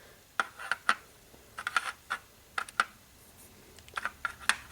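Light, sharp plastic clicks and taps in small clusters, with quiet gaps between: small plastic model-kit parts being handled and set down on a hard surface.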